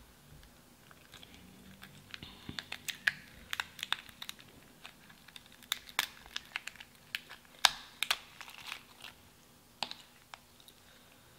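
Boiled shellfish shell being cracked and snapped apart by hand: a string of sharp, irregular cracks and clicks, the loudest a little past halfway.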